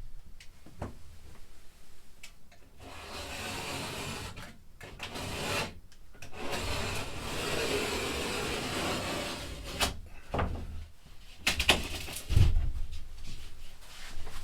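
Drywall being scraped and worked by hand: long stretches of scraping and rubbing noise, then a few sharp knocks and thumps about ten seconds in.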